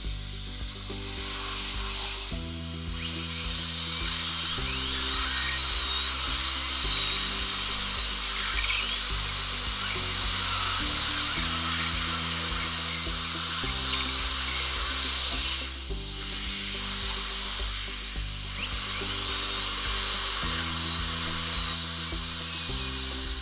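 High-speed dental handpiece whining as it drills out an old amalgam filling from a molar, its pitch wavering as it cuts, over a steady hiss. It starts about two seconds in, stops briefly around the middle, then resumes.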